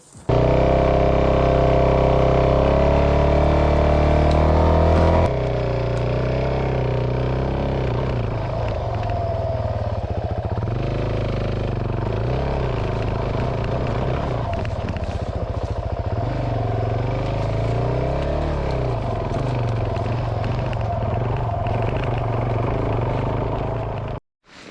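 Dual-sport motorcycle engine running hard on a rough trail, its revs rising and falling. It starts abruptly, changes suddenly about five seconds in, and cuts off near the end.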